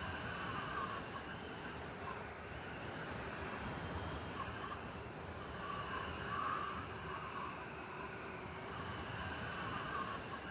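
Blizzard wind blowing steadily over a low city traffic rumble, with a faint wavering whistle that swells and fades every few seconds.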